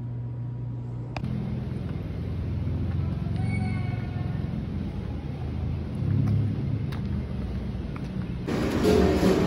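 A steady low hum, then after about a second a low rumble of street traffic, with a faint brief tone a few seconds in. Background music comes in near the end.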